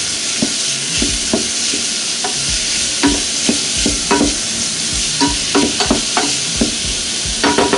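Chopped onions sizzling in olive oil in a steel pot, with a steady hiss, while a wooden spoon stirs them, knocking and scraping against the pot's sides in irregular light taps.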